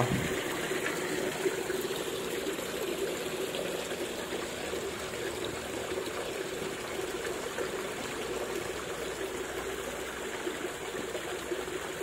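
Water trickling and running steadily into a carp pond, with a faint steady hum underneath.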